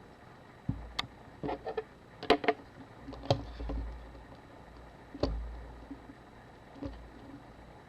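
Scattered small clicks, taps and a few dull knocks from handling a Canon AE-1 camera body and small tools during disassembly.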